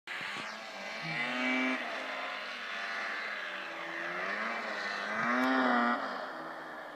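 Arctic Cat 650 rat-rod snowmobile's two-stroke engine revving up and back down twice, loudest at the top of the second rev before it falls away.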